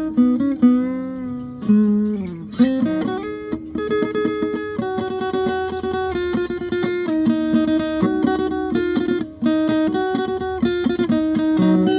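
Guitar being played: notes bent and wavering in pitch for the first few seconds, then quick picked notes over a ringing held note.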